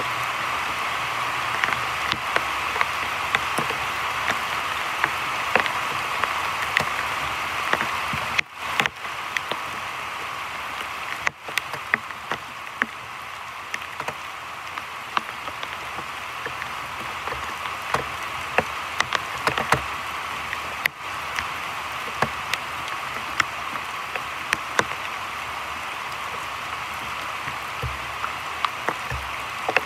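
Heavy rain falling on a creek's surface and the surrounding forest: a steady hiss dotted with many sharp ticks of single drops close by.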